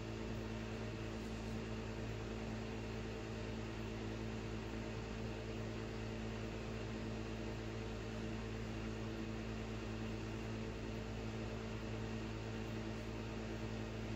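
Steady low electrical hum with a faint hiss underneath, unchanging throughout: room tone with no distinct strokes or knocks.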